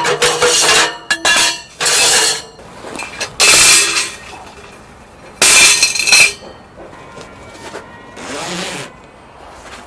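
Dishes and metal cookware clinking and clattering in about five separate short, sharp bursts.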